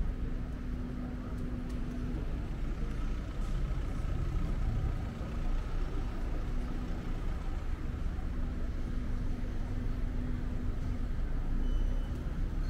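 Low, steady rumble of a motor vehicle engine running, with a hum that drops out now and then, over general street background.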